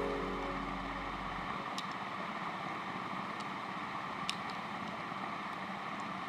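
Steady background hiss with a few faint, sharp clicks of plastic 4x4 Rubik's cube pieces being fitted into the inner structure. The tail of some background music fades out in the first second or so.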